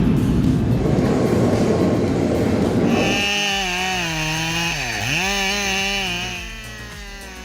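Rough mechanical noise for about three seconds, then a chainsaw running at high revs. Its pitch dips sharply about five seconds in and recovers, and it dies down near the end.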